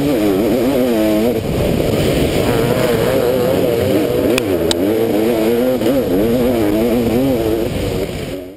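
Kawasaki KX500 two-stroke motocross engine heard on board, its revs rising and falling over and over with the throttle. The sound fades out near the end.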